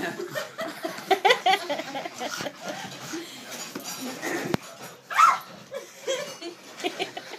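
Small terrier giving short, excited yips and whines as it plays with a basketball. There is a single sharp knock about four and a half seconds in.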